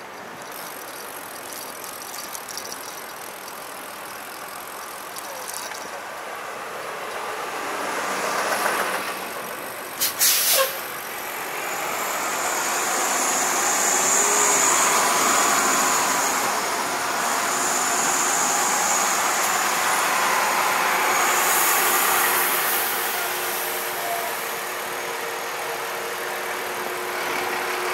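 City street traffic, vehicles passing close by, growing louder over the first dozen seconds. A sharp, loud clatter about ten seconds in, and a high hiss that comes and goes through the middle.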